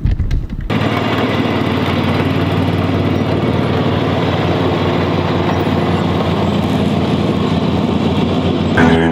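Red Exmark commercial mower's engine running steadily while cutting grass, after a few handling knocks in the first second. Music comes in right at the end.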